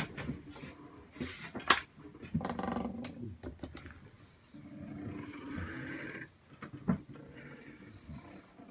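A galley countertop hatch being lifted off a boat's engine compartment: a few knocks, the loudest a little under two seconds in, a brief pitched creak just after, then rubbing and handling noises.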